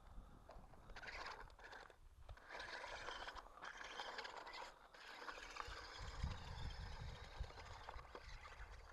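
Small RC toy tank's tracks scraping and crunching over gravel in several short spurts, with brief stops between them. A low rumble takes over in the second half.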